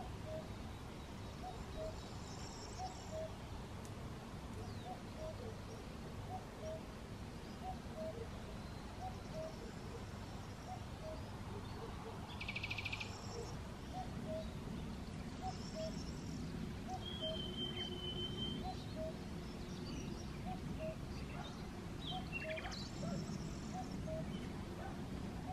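Outdoor rural ambience: scattered bird chirps and a short trill about halfway, over a soft low note repeated steadily a little more than once a second and a faint low rumble.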